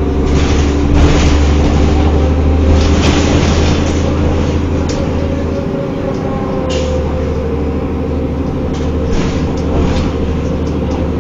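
Cummins ISL inline-six diesel engine of a 2005 New Flyer D40LF transit bus running under way with a steady low drone, the engine note dipping briefly about six seconds in before picking up again.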